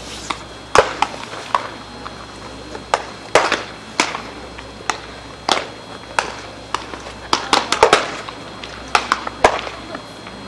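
Baseballs smacking into leather gloves during a game of catch: sharp pops at irregular intervals, sometimes several in quick succession.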